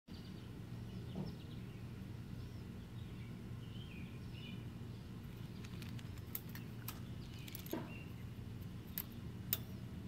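Birds chirping at intervals over a steady low background hum. In the second half, several sharp clicks of tie wire knocking against the steel reinforcing mesh as it is threaded and bent, the loudest near the end.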